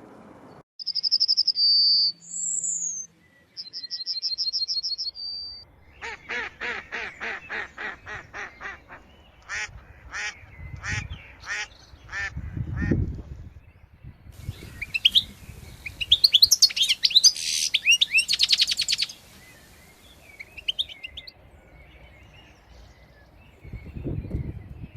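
Birds calling: a few clear whistled notes and a fast high trill, then a run of harsh calls repeated about four times a second, then a burst of high chirping. A few low thumps come in the middle.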